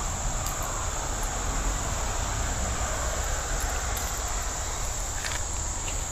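Steady high-pitched chorus of insects over a low rumble, with a couple of faint clicks about five seconds in.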